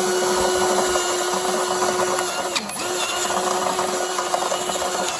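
Electric drill running under load as it bores a hole through an engine valve cover: a steady motor whine whose pitch sags briefly about two and a half seconds in as the bit bites, then the drill stops at the end.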